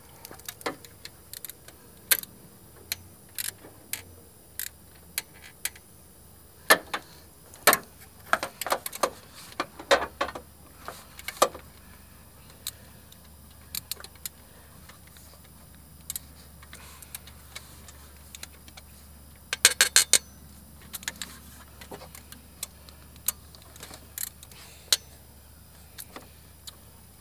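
Metal hand tools clicking and clinking while fastening the alternator: scattered sharp clicks, busiest between about a quarter and halfway through, and a quick run of socket-ratchet clicks about two-thirds of the way through.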